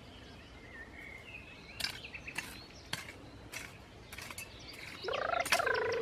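Small birds chirping, with several sharp knocks scattered through. About five seconds in, a loud, drawn-out, high-pitched wail begins and holds steady.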